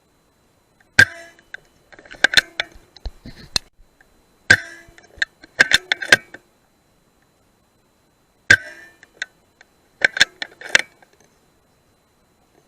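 Three sharp rifle shots about three and a half seconds apart, each followed about a second later by a quick run of metallic clicks, typical of working the bolt to reload.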